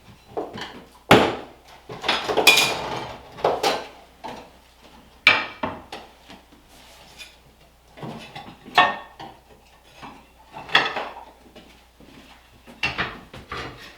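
A metal pry tool scraping and knocking against ceramic backsplash tile as the tile is pried off the wall: a string of sharp clinks and scrapes, several seconds apart.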